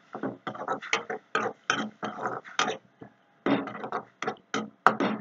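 A metal spoon scraping and knocking against an aluminium kadai while stirring, in quick, irregular, sharp strokes, about three a second.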